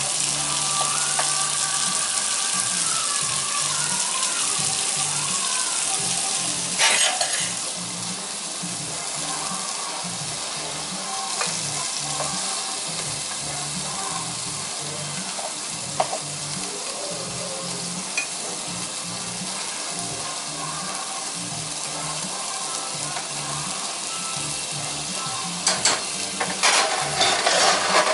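Ground turkey burger patty sizzling steadily as it fries in a nonstick skillet. A metal spatula scrapes and taps against the pan a few times, about seven seconds in and in a quick cluster near the end.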